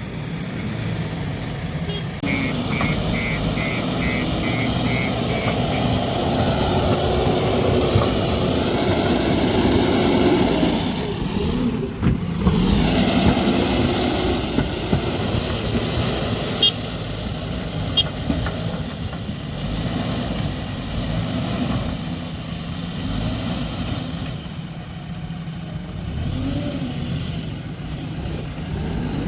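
JCB 3DX backhoe loader's diesel engine running steadily while working soil. Early on, a short run of even beeps sounds, about two a second, for a few seconds.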